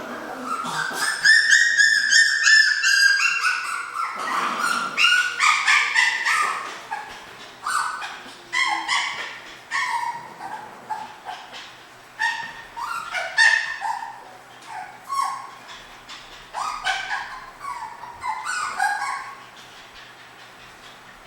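Tiny toy and micro mini goldendoodle puppies whining and yipping. One long high whine rises and falls over the first few seconds, then many short high yips and whimpers follow, dying away near the end.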